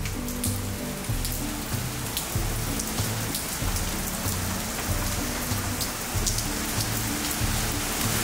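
Rain falling steadily, an even hiss with scattered sharp drips and ticks. Background music with a regular low beat runs underneath.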